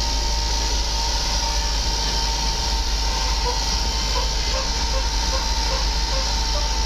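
Steady rumble and road noise of a moving vehicle, with a steady high hum running through it. A few faint short tones come in around the middle.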